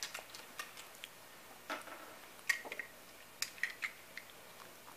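Faint, scattered clicks and taps of two die-cast toy cars being picked up and handled, knocking against each other and the fingers.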